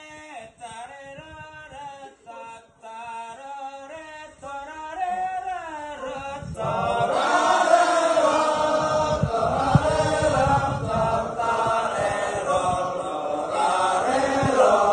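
Balinese genjek group singing: a single voice sings a wavering melodic line, and about six seconds in many voices come in together in a loud chanted chorus.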